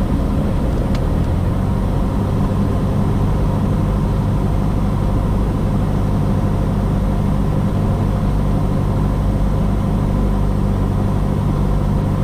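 Cessna 172S's four-cylinder Lycoming engine and propeller droning steadily in the cockpit on final approach. There is one faint click about a second in.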